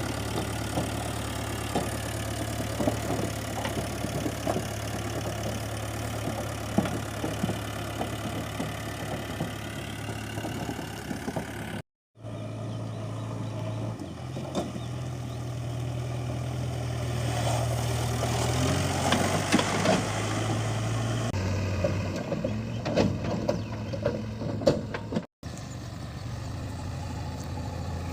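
Heavy diesel machinery engine running steadily, its low note stepping in pitch a few times, with scattered knocks and clatter over it. The sound cuts out completely twice for a moment.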